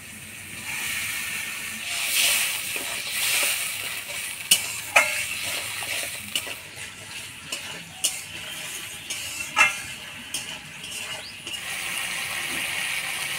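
Wet spice paste with a little water sizzling in a cooking pan as it is stirred and fried down, the spatula scraping against the pan with several sharp clinks.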